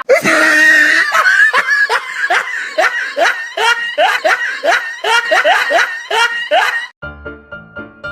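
Loud laughter in a rapid rhythmic run of short "ha" calls, about two a second. About seven seconds in it cuts off abruptly into piano music.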